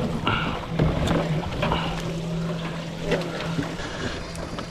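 Boat's outboard motor idling with a steady low hum, water washing against the hull, and a few short clicks and higher sounds scattered over it.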